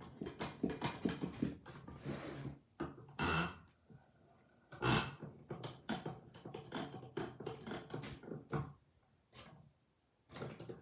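A rebuilt Fuller 4.5-inch bench vise being cranked open and closed: its handle and screw click and rattle in quick runs as the sliding jaw travels, with a few louder clunks, the loudest about five seconds in.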